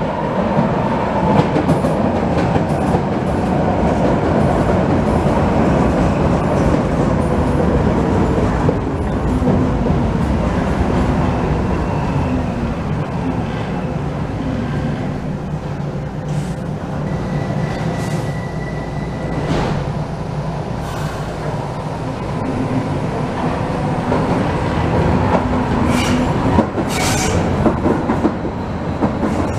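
Vienna U-Bahn metro train braking into a station, its motor whine falling in pitch over rumbling wheels. It stands with a short steady beep in the middle, then pulls away with the whine rising again, over wheel clatter and a few sharp clicks near the end.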